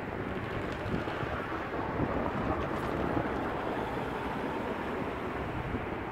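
Road traffic on a busy three-lane road, a steady rush of car and tyre noise that grows a little louder a few seconds in, with wind buffeting the microphone.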